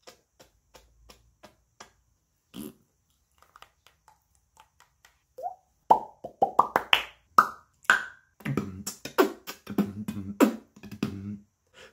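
Mouth percussion by a man: a few faint clicks, then about six seconds in a quick run of hollow pops made with his fingers at his lips, each higher in pitch than the last, followed by rhythmic beatbox-style voiced mouth sounds.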